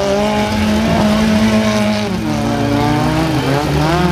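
Demolition derby car engines revving, several running at once, their pitch rising and falling, with a sharp rev-up near the end.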